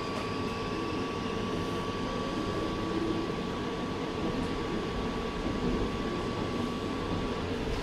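Steady running and ventilation noise inside a VBZ Flexity tram, with a thin steady whine that cuts off near the end.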